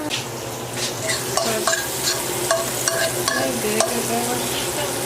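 Onions frying in a pan, a steady sizzle, while a utensil stirs them with repeated short clicks and scrapes against the pan.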